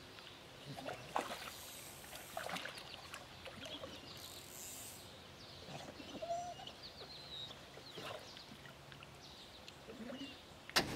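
Quiet creek-side ambience: scattered bird chirps and light splashing of water.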